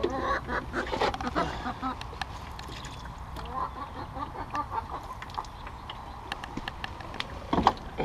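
Backyard hens clucking in short repeated calls, with light clicks throughout and a single louder knock near the end.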